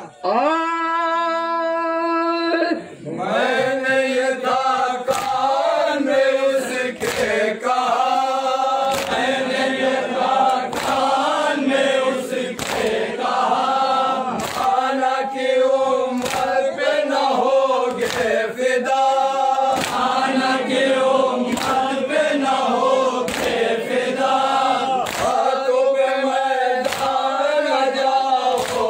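Group of men chanting a noha (Urdu mourning lament) in unison, with a lead voice on the microphone. The first couple of seconds are one held note; then the chant goes on over a steady beat of open hands striking chests (matam), about once a second.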